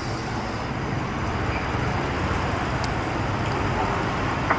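Steady street traffic noise, a constant hum of passing engines, with a couple of light clicks.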